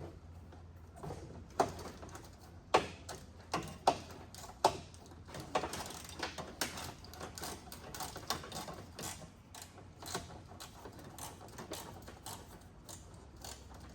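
Socket ratchet clicking in irregular runs as a small 8 mm bolt is worked loose, with several sharper metallic knocks between about one and five seconds in, over a steady low hum.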